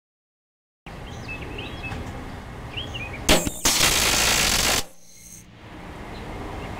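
Small homemade liquid-fuelled rocket engine firing for about a second. A sharp pop opens it, then a loud steady rushing hiss that cuts off suddenly. The burn is "wet" and weak: the oxidiser-to-fuel ratio is far too fuel-rich (about 0.39:1), so the engine is barely combusting.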